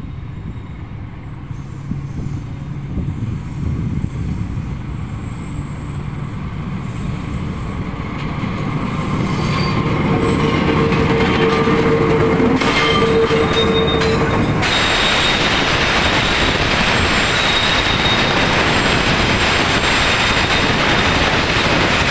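Diesel-electric locomotive approaching with a low engine rumble that grows steadily louder, with a steady high tone for a few seconds as it nears. Roughly fifteen seconds in, loud steady wheel-on-rail rolling noise suddenly takes over as the freight wagons pass close by.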